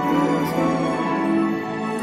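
Light-show soundtrack music with long held notes and gliding melody lines.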